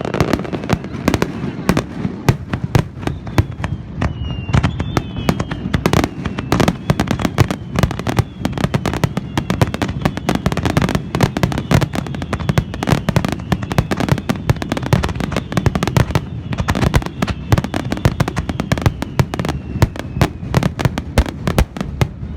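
Fireworks finale: a dense, continuous barrage of shell bursts and crackles, many bangs a second with no let-up, and a faint high whistle running through the middle.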